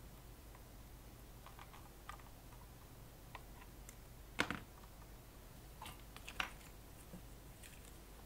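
Scattered light clicks and taps of pliers and wire against a metal amplifier chassis as twisted heater wiring is pressed into place. The sharpest click comes about four and a half seconds in, with two more around six seconds, over a faint low hum.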